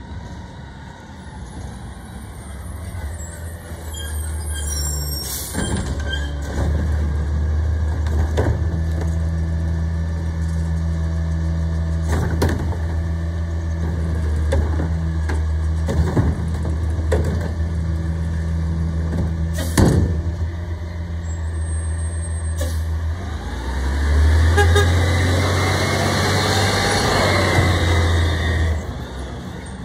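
Garbage truck with a Curotto-Can cart arm: diesel engine running steadily while the hydraulic arm lifts and tips a cart, with several sharp bangs of the cart being shaken and knocked empty. Toward the end the engine gets louder, rising and falling in pitch as the truck pulls away, then drops off suddenly just before the end.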